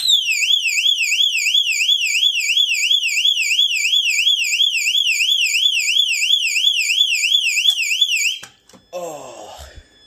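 Cerberus Pyrotronics MC-S17-F fire alarm horn strobe sounding its warble tone: a loud, shrill electronic tone sweeping up and down about three and a half times a second. It cuts off suddenly after about eight seconds.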